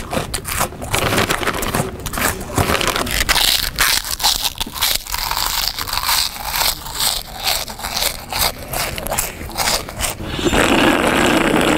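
A person eating loudly: rapid, irregular crunching, chewing and scraping. A louder, longer sound sets in near the end.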